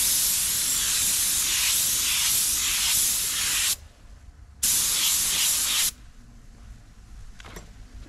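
Compressed-air paint spray gun hissing in two trigger pulls: a long spray of nearly four seconds, then after a short pause a second spray of about a second and a half, each starting and stopping abruptly.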